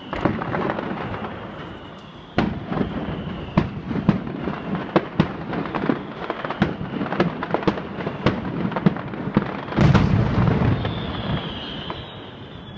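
Fireworks going off: a steady run of bangs and crackling pops from aerial bursts, with louder booms about two seconds in and again about ten seconds in. A high thin whistle sounds near the end.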